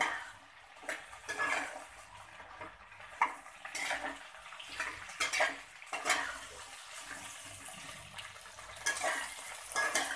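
Metal spoon stirring and scraping chopped okra around an aluminium kadhai as the okra fries in oil, in repeated irregular sweeps. The okra is being fried first to cut its sliminess.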